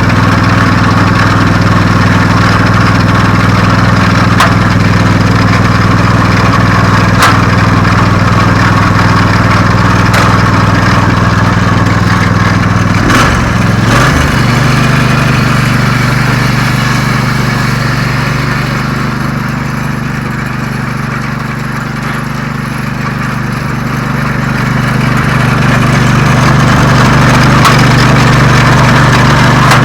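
Lucas sawmill's engine running steadily, its pitch dropping and settling at a new speed about halfway through.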